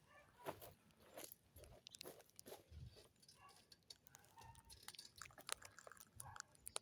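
Near silence with faint, scattered clicks and crunches.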